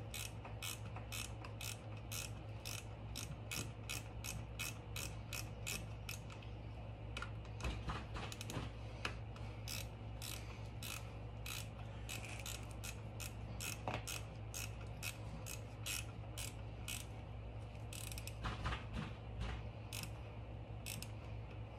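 Ratcheting 10 mm wrench clicking at a few clicks a second, in runs with short pauses, as the bolt on a motorcycle battery's positive terminal is tightened. A few louder knocks come in between.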